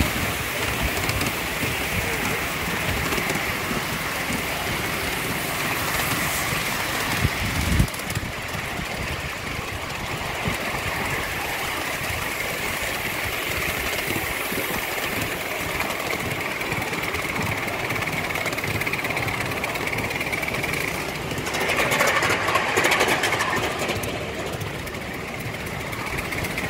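5-inch-gauge live-steam model of an LNER B2 two-cylinder 4-6-0 locomotive running under way, heard close behind its tender: steady rapid chuffing from the exhaust with the wheels running over the rails. A single sharp knock comes about 8 seconds in, and the sound swells for a couple of seconds around 22 seconds in.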